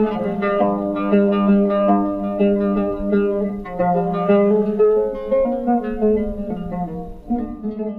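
Background music: a melody on a plucked string instrument, with notes changing about every half second.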